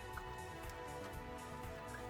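Soft background music: sustained notes with a light, regular beat.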